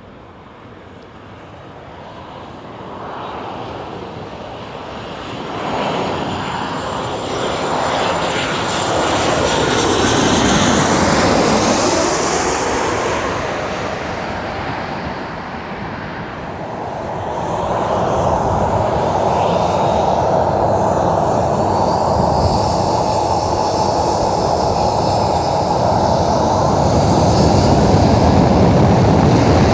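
Jet airliner on final approach, a Boeing 737, passing low overhead. The engine noise builds to a peak about eleven seconds in, eases off, then swells again and holds steady.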